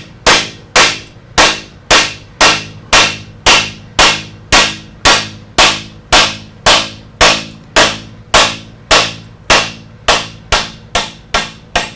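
Steady hammer blows driving a cutlass bearing into a stern tube bore, about two strikes a second, each with a short metallic ring, coming slightly faster near the end.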